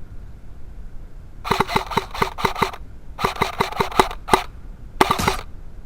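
Airsoft gun firing quick strings of shots, about five sharp clicks a second. There are two runs, then a single shot, then a short last run near the end.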